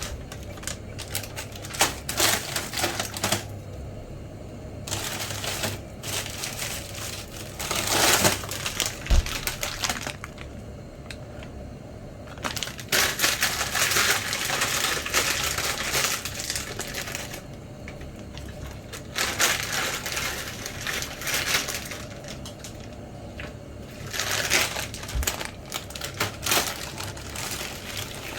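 Irregular bursts of rapid clicking, tapping and crinkling, a few seconds at a time with quieter gaps between, as of things being handled close to the microphone.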